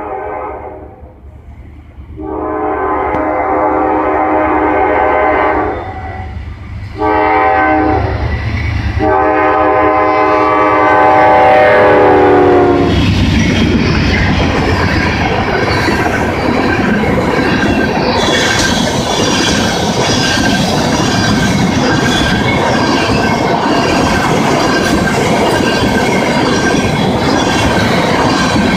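Diesel freight locomotive horn sounding for a grade crossing: a long blast, a short one, then a long one that drops in pitch as the lead locomotive passes. Then the tank train rolls by with a steady clatter of wheels over the rail joints.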